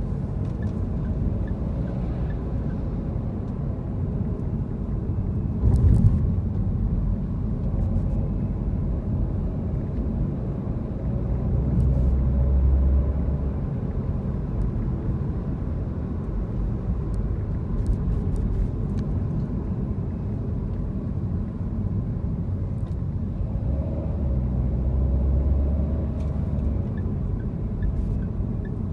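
Car cabin noise while driving slowly in city traffic: a steady low engine and road rumble that swells twice, with a single sudden knock about six seconds in.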